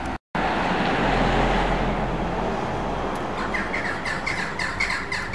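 Steady background road traffic noise, and from about three seconds in a young sparrow chirping in a rapid run of short repeated calls, about six a second.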